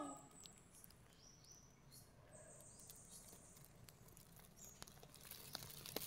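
Near silence: faint outdoor ambience with a few faint, short high-pitched chirps and ticks.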